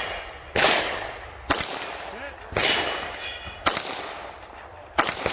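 Handgun shots fired at a slow, steady pace: five shots about a second apart, each with a long echoing tail.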